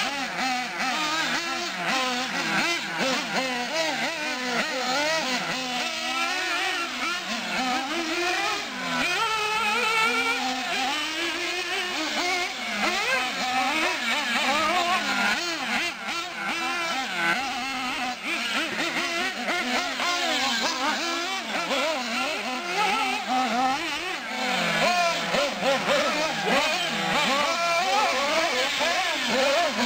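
Small nitro engines of two 1/8-scale radio-controlled off-road cars, an Associated RC8 buggy among them, revving up and down continually as they race. Their overlapping pitches climb and drop every second or so.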